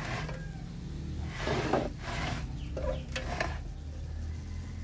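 A metal-cased servo voltage regulator being handled and turned round on a wooden workbench: a rustling scrape about a second and a half in, then a couple of quick knocks around three seconds, over a low steady hum.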